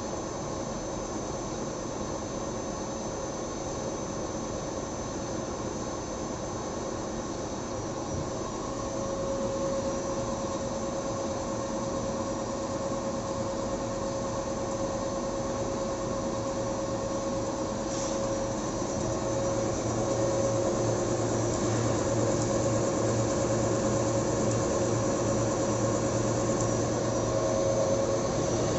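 620mm paper slitting machine running, its electric motor and rollers making a steady hum with a held whine, which grows a little louder about ten seconds in and again around twenty seconds in.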